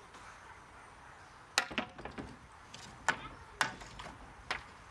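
About six sharp, irregular knocks and clinks, starting about a second and a half in: boards and building debris being knocked about during a shop demolition.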